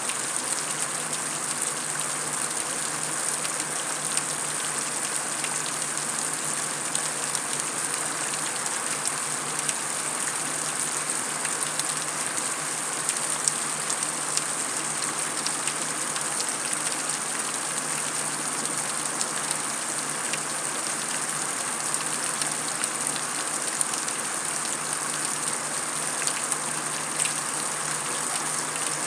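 Heavy rain falling steadily on concrete: a dense, even hiss scattered with many small, sharp drop ticks.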